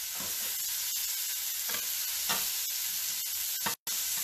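Shell-on shrimp sizzling in a hot frying pan as they are turned over, with a few light clicks through the steady sizzle. The sound cuts out for an instant near the end.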